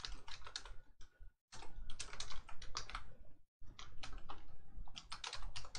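Typing on a computer keyboard: a quick run of keystrokes, broken twice by short silences.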